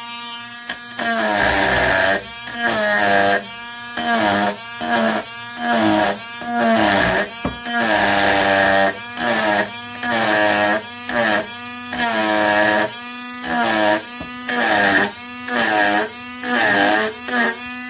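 Dremel Stylo rotary tool with a small carving bit running and cutting into hardwood in short repeated strokes. Its high whine swells and dips about once a second, the pitch sagging with each stroke as the motor slows under the load.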